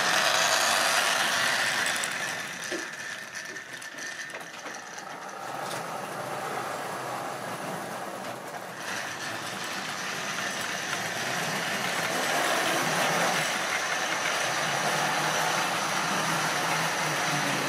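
Model railway trains running with a rake of open goods wagons, making a steady rattling clatter along the track. The clatter drops about two seconds in and builds again about twelve seconds in.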